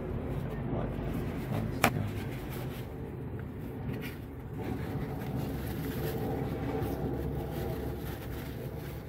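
Gloved hands working at a car battery's positive terminal, lifting its plastic cover and wiping the clamp with paper towel, giving soft handling noise with one sharp click about two seconds in, over a steady low rumble.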